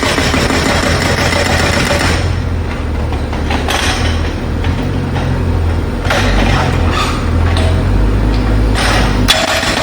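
Construction breaker hammering into the ground, a dense rapid rattle, stopping about two seconds in. A heavy engine keeps running with a low rumble, and the hammering starts again with a sharp knock near the end.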